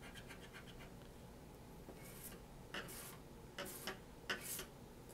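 Scratching the coating off a Cash Explosion scratch-off lottery ticket: faint quick strokes at first, then a handful of separate scrapes, mostly in pairs, from about two seconds in.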